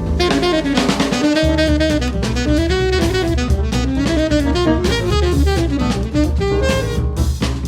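Instrumental break of a jazz-styled punk cover: a saxophone plays a moving melody over drum kit with cymbals and a walking bass line.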